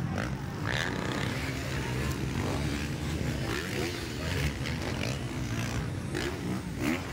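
Motocross dirt bikes racing on the track, their engines revving up and down.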